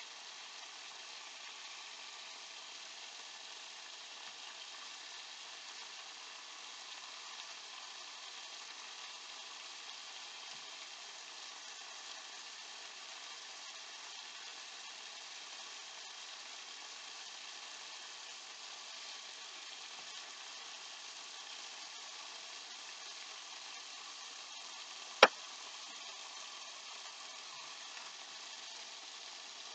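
Catfish fillet frying in oil in a frying pan: a steady sizzle. One sharp click stands out near the end.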